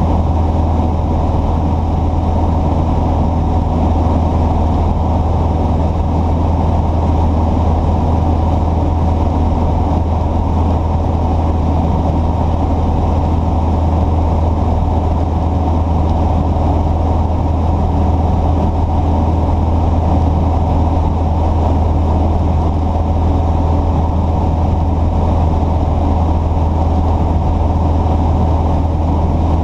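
A steady, unchanging low engine drone, as from an engine running at a constant speed.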